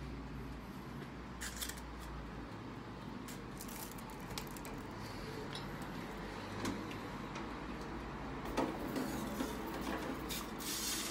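Faint rustling of a foil-lined baking pan being handled, with scattered light clicks and knocks from the countertop oven's door and the pan. A small cluster of knocks comes about two-thirds of the way in.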